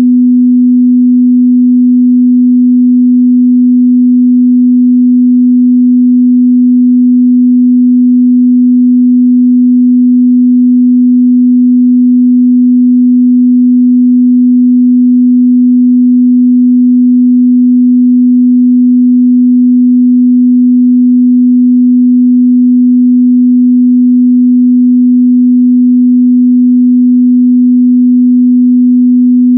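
Steady, loud 248 Hz sine-wave test tone, a single pure mid-bass pitch that holds unchanged throughout.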